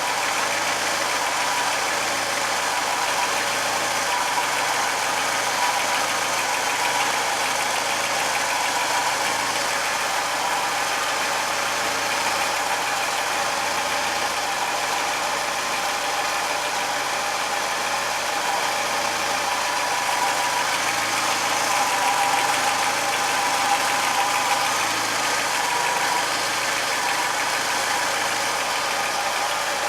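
VW Jetta Mk2's 1.8-litre four-cylinder petrol engine (1.8 GX) running steadily when cold, with a strange knock coming through its idle.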